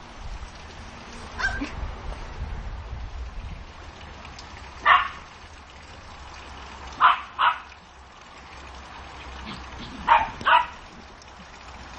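Small dog yapping in play: five short, sharp barks, one about five seconds in, then a pair at about seven seconds and another pair at about ten seconds.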